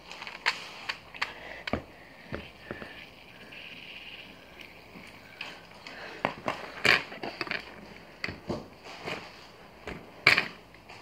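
Handling noise from small toys on a wooden tabletop: scattered light clicks and knocks, with a few sharper knocks about seven and ten seconds in.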